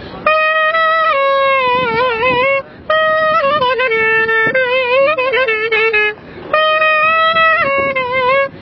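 Clarinet playing an ornamented melody with wavering pitch, in three phrases separated by short pauses.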